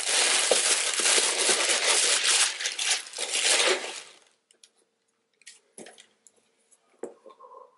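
Tissue paper packing in a cardboard shoebox crinkling and rustling loudly as it is pulled apart for about the first four seconds. After that come only a few faint taps and rustles.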